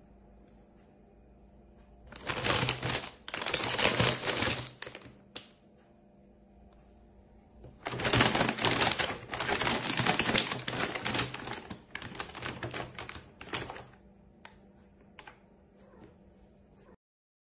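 Packets of dry cat food shaken and squeezed, the kibble rattling and the plastic crinkling, in two bouts of a few seconds each with a short pause between.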